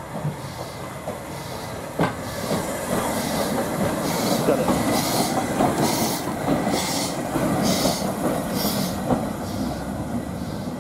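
LMS Ivatt Class 2MT 2-6-2 tank engine No 41312 running light at slow speed as it passes close by, its exhaust chuffing about once a second over the rumble and clank of its wheels on the rails. A sharp knock comes about two seconds in.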